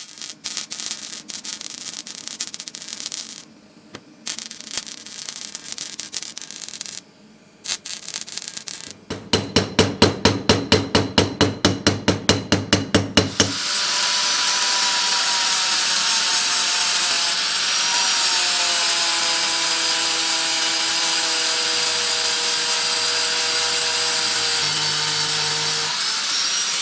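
Cold-welding (electro-spark repair) work on a copper part. For the first third there are irregular crackling bursts with short breaks, then evenly spaced pulses at about four to five a second. From about halfway a steady whirring, grinding-like noise takes over, with faint tones that slowly drop in pitch.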